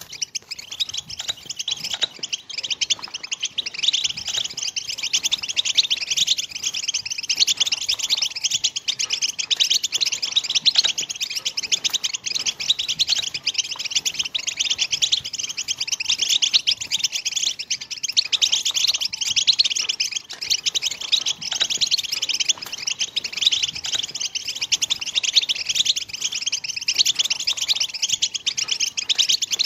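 European goldfinches twittering in a dense, unbroken stream of quick chirps: the 'batbata' song type that breeders play to set goldfinches singing and breeding.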